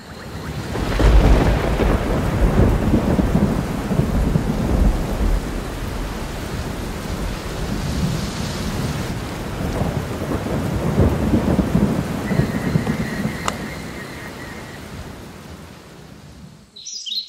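Thunder rumbling over steady rain during a thunderstorm, swelling about a second in and dying away near the end.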